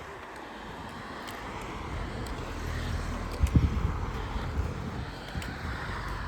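Car passing on the highway, its tyre and road noise swelling to its loudest about halfway through.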